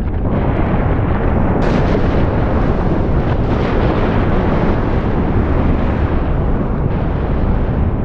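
A volcano erupting: a loud, steady deep rumble that never lets up.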